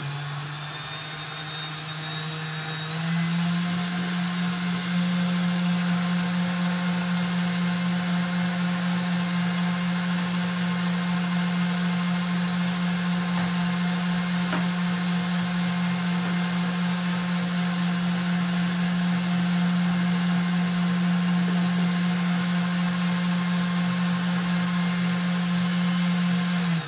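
Stand mixer with a wire whisk running steadily, whipping cream, cream cheese and powdered sugar. Its motor steps up to a higher speed a few seconds in, holds an even hum, and is switched off near the end.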